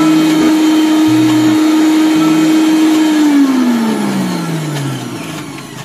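Miniature toy mixer grinder's small electric motor running steadily with a high whine while blending watermelon juice. About three seconds in it is switched off, and the whine falls steadily in pitch and fades as the motor spins down.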